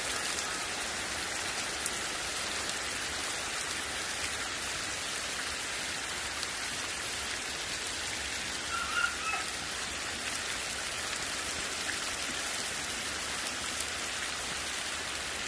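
Heavy rain falling steadily, a constant even hiss of downpour.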